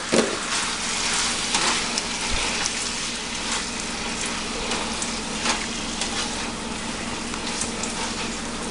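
Chicken pieces sizzling in orange sauce in a hot pan, a steady frying hiss, with a few short scrapes and knocks of a utensil stirring them.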